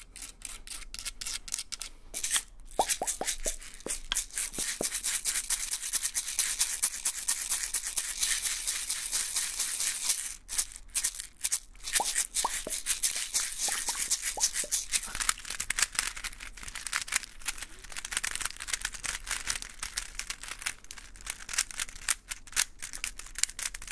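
Fast close-up ASMR handling sounds: rapid tapping, rattling and scratching on small objects over a high hiss, breaking off briefly about ten seconds in. Near the end comes the clicking of a Rubik's cube being twisted.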